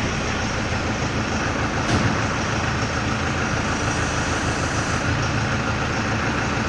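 Tractor engine running steadily, supplying hydraulic power to the baler, with a single light click about two seconds in.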